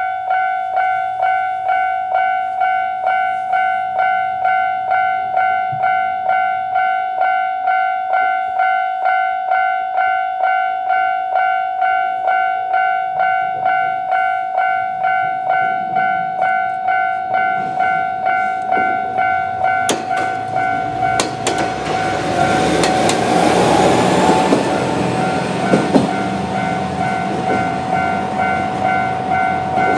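Japanese level-crossing electronic warning bell ringing steadily at about two strikes a second. About 20 seconds in, an Isumi 350-series diesel railcar runs over the crossing, growing loud with sharp clacks of its wheels over the rail joints, while the bell keeps ringing.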